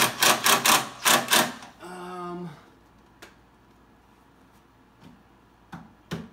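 Cordless impact driver hammering in a quick run of short bursts, about seven strokes in a second and a half, as a screw is driven into a wooden shelf slat. A brief hum follows about two seconds in.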